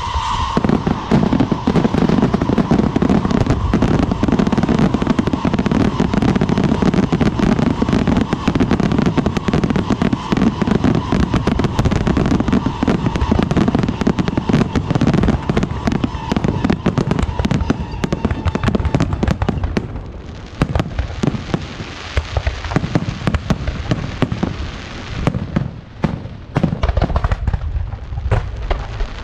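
Dense fireworks barrage: aerial shells bursting and ground fountains firing in rapid succession, a continuous crackle of bangs. A steady whistling tone runs under it and fades out about two-thirds of the way through. The barrage thins briefly about twenty seconds in, then builds again near the end.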